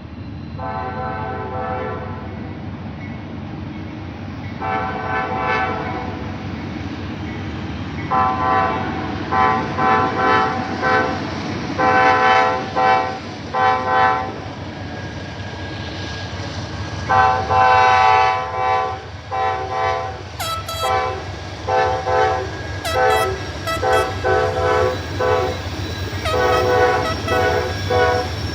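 Norfolk Southern locomotive horn sounding a long string of blasts: several held blasts, one of them about two seconds long, then a run of short, quick toots near the end. A steady low rumble of the passing train runs underneath.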